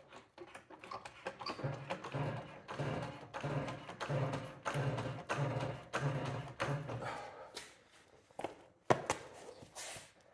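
Hydraulic trolley jack being pumped with its long handle: a run of rhythmic strokes, about two a second, for several seconds, then a single sharp knock near the end.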